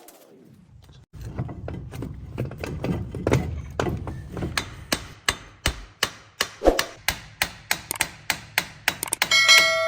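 Hammer blows on the hub bearing assembly, a steady run of sharp metal strikes speeding up to about three a second. Near the end a struck metal part rings briefly.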